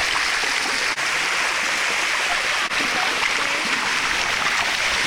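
Waterfall water rushing steadily over rock as a continuous even hiss, broken by two split-second dropouts, one about a second in and one just under three seconds in.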